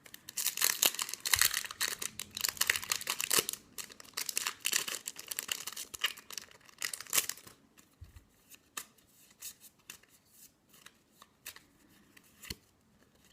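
Foil wrapper of a Yu-Gi-Oh booster pack being torn open and crinkled: dense rustling and crackling with many sharp clicks for about the first seven seconds, then sparser clicks and quieter rustling as the cards are handled.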